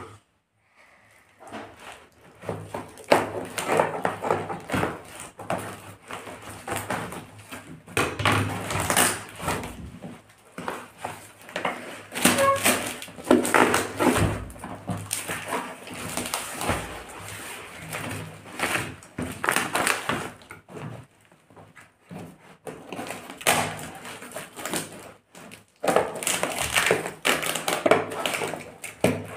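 Corrugated cardboard packaging and packing tape being cut with a knife and torn open by hand. It starts about two seconds in as irregular ripping and rustling with occasional knocks on the table.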